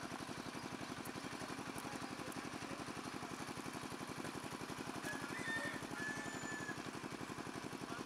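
An engine running steadily with a fast, even throb, and a brief high whistle a little past halfway.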